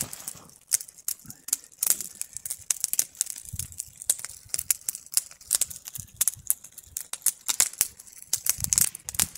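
Wood fire burning in a steel mesh fire pit, crackling with many irregular sharp pops.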